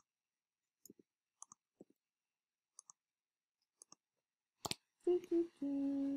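Scattered faint clicks from a computer mouse, mostly in quick pairs, then one sharper click. Near the end a woman hums a few notes.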